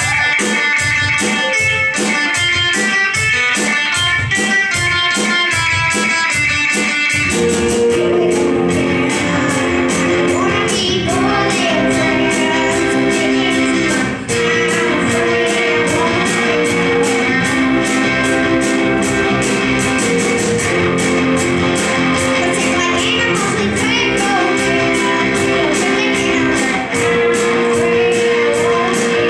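Youth rock band playing live: keyboard, electric guitar, bass guitar and drums. A repeating riff of short notes over a steady beat opens, the full band comes in with held chords about seven seconds in, and a girl sings lead.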